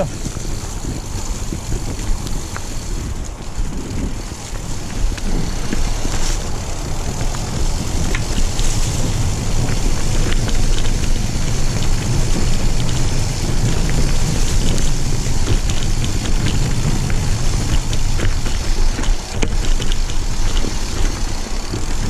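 Mountain bike riding down a dirt singletrack: wind buffeting the camera microphone over a steady rumble of tyres on the trail, with scattered small rattles and clicks from the bike, growing louder about five seconds in.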